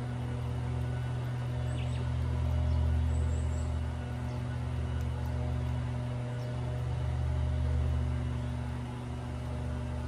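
Small engine of a grass-cutting machine running steadily, swelling louder twice.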